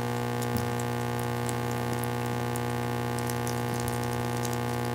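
Steady electrical hum and buzz from a sound system, with a few faint scattered clicks.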